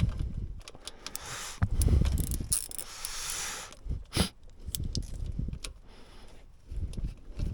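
Metal tools and parts being handled while a thermostat housing is unbolted with a 10mm socket: small clinks and clicks, a scraping stretch a second in, and a sharp click about four seconds in, with low bumps of handling.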